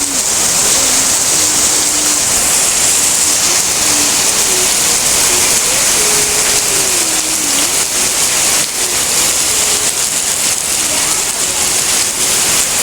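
Hail and rain pelting down in a dense, steady hiss, with scattered sharper hits of hailstones standing out now and then.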